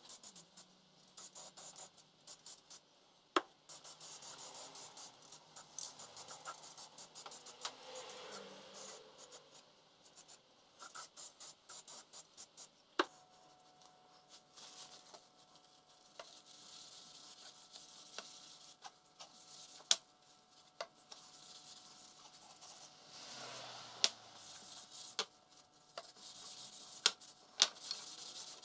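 Hand scraping and rubbing on metal parts in short, irregular strokes, with a few sharp clicks as tools or parts knock together. The scratching is busiest in the first part, and a faint steady tone runs through the middle.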